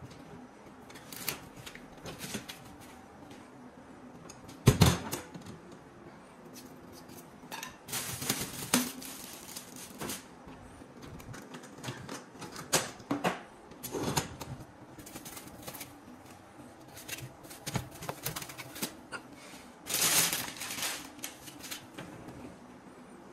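Wire dish racks of a Toshiba DW08T1 countertop dishwasher rattling and clacking as packing foam and packed items are handled and pulled out, with irregular knocks and clicks. The loudest knock comes about five seconds in, and a longer scraping rustle comes about twenty seconds in.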